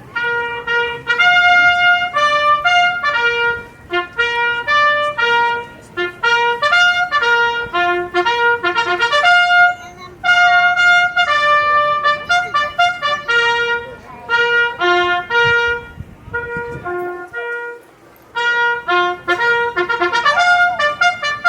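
Solo trumpet playing a bugle call: a quick, rhythmic line of repeated notes on the horn's few natural pitches, with a brief pause before the call resumes.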